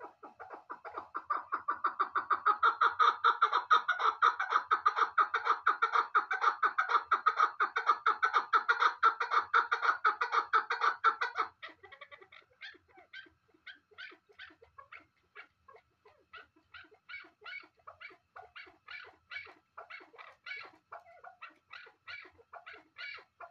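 Chukar partridge calling in a long run of rapid, evenly repeated notes that builds up over the first couple of seconds, stays loud, then breaks off abruptly about halfway through. A softer run of similar quick notes follows to the end.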